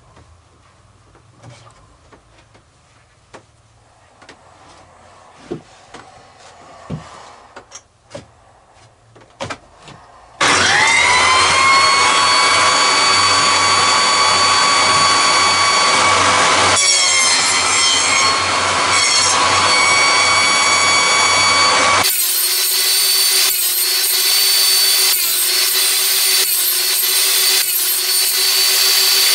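A few handling clicks and knocks, then a table saw switched on about a third of the way in. Its whine rises as the blade spins up and settles into a steady loud run while box joints are cut with a wooden indexing jig. The sound changes abruptly partway through and carries on as loud sawing.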